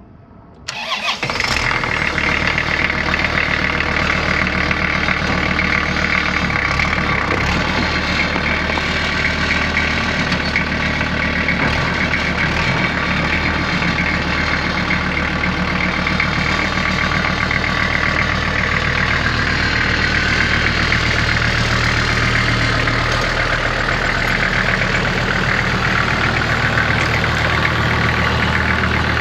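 Kubota M5400 tractor's diesel engine catching about a second in, then running steadily.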